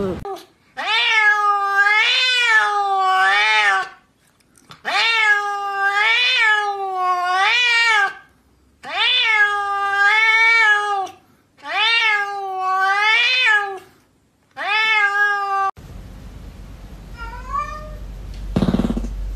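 Domestic cat meowing loudly in five long, drawn-out calls. Each call wavers up and down in pitch over two to three seconds, with short pauses between them. Near the end come a few faint short cat calls and a single knock.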